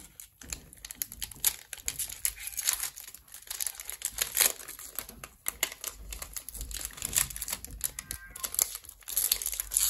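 Foil Pokémon booster pack wrapper crinkling in the hands as it is torn open and pulled apart, a dense run of irregular crackles.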